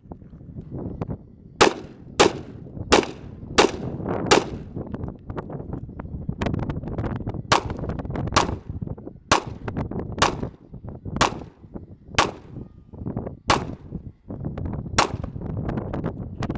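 Gunshots from an AR-15 rifle and a .45 M1911 pistol, fired in a string. There is a quick run of five about two-thirds of a second apart, then about eight more spaced roughly a second apart.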